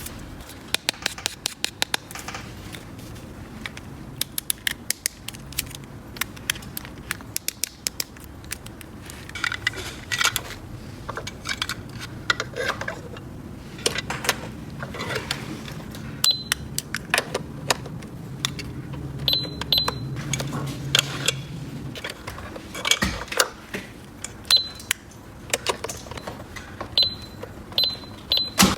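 Small plastic toy pieces clicking and clattering as they are handled and snapped together, with several short, high electronic beeps in the second half.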